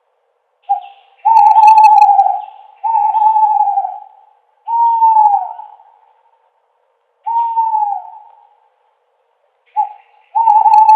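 An owl hooting: a short note, then four drawn-out hoots, the last two sliding down in pitch, with the series starting again near the end.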